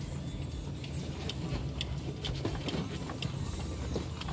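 2001 Toyota Tundra 4x4 driving slowly over a rough, overgrown trail, heard from inside the cab: a steady low engine hum with scattered clicks and knocks.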